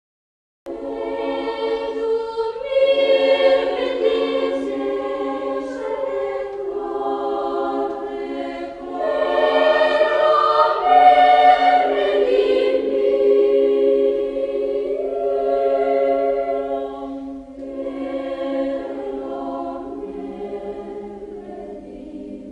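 A choir singing in sustained held chords. It starts just under a second in and is quieter over the last few seconds.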